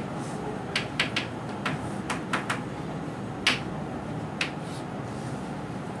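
Chalk tapping and scratching on a chalkboard as a word is written: about ten sharp, irregular ticks over the first four and a half seconds, over a steady room hiss.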